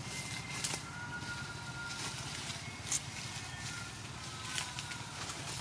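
Outdoor forest ambience: a steady low hum with scattered small clicks and snaps, and a few thin, high, held tones.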